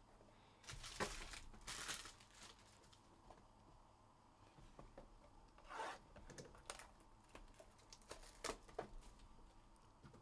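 Faint rustling and crinkling of a trading-card box's packaging handled by hand, in short bursts: a cluster about a second in, one near the middle and several over the later part.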